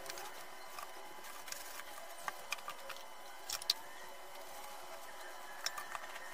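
Steady faint hiss with a dozen or so scattered light clicks and taps, the sharpest a little past halfway.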